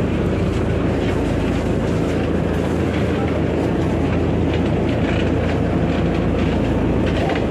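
Engine of a small wooden harbour ferry running, a steady low throbbing rumble heard from inside the boat's cabin.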